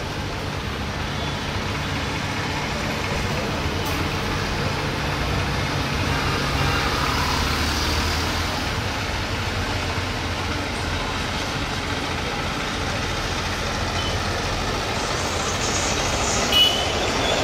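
Airbus A320 jet engines heard at a distance on the runway: a continuous low rumble and hiss that swells slightly partway through. A short high chirp sounds near the end.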